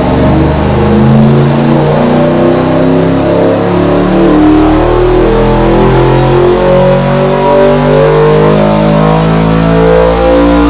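393-cubic-inch Ford Cleveland V8 on an engine dyno running a wide-open-throttle power sweep on LPG liquid injection blended with petrol, its loud engine note climbing steadily in pitch as the revs rise.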